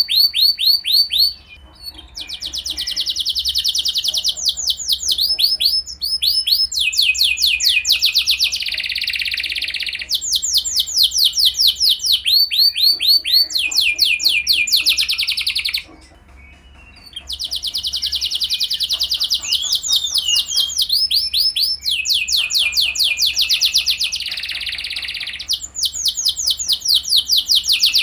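Domestic canary singing: fast rolling trills of rapidly repeated sweeping notes, phrase after phrase, each phrase a second or two long. The song breaks off briefly twice, about two seconds in and again around the middle.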